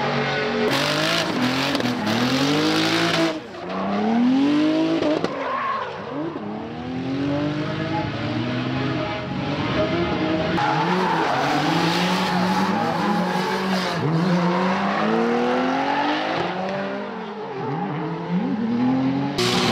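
Drift cars' engines revving up and down again and again as they slide sideways, over the screech and hiss of spinning, smoking tyres.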